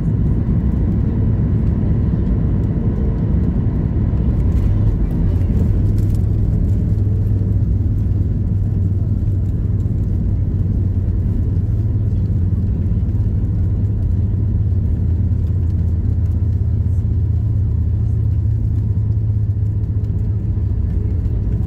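Inside the cabin of a Boeing 737 MAX 8 as it lands: a steady rumble of the engines and airflow, with a few faint knocks about four to six seconds in as the wheels meet the runway. From about five seconds in a deeper, steady low rumble takes over as the airliner rolls out along the runway.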